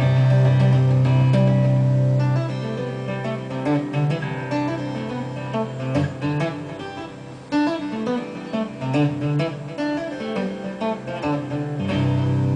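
Solo acoustic guitar played fingerstyle: a ringing chord with a deep bass note, then a melody of single plucked notes, and another full chord near the end.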